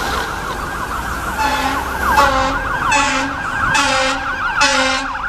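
Fire engine siren in a fast electronic yelp, its pitch sweeping up and down several times a second. From about a second and a half in, it is joined by about five short horn blasts.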